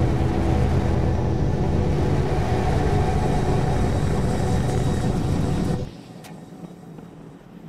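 Deep rocket-engine rumble from a Starship prototype's Raptor engines during its landing burn, cutting off suddenly about six seconds in.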